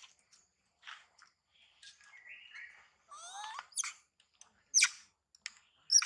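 A string of short, high-pitched animal chirps and squeaks, some sliding upward in pitch and some held briefly on one note, with the sharpest, loudest chirps coming near the end.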